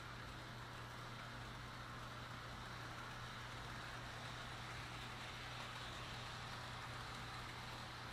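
Electric model train set running steadily around its oval of track, with the small motor whirring and the wheels rolling on the rails, over a steady low hum.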